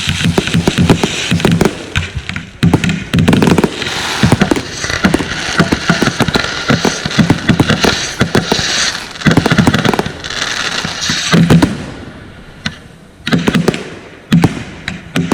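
Consumer fireworks going off in a rapid barrage: many sharp bangs of shots and bursts over a continuous crackle. The firing thins out about three-quarters of the way through, then a few more bangs come near the end.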